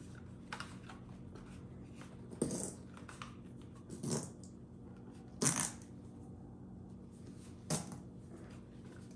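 Full-face respirator being pulled on and its straps adjusted: four short rustles and plastic knocks, over a steady low hum.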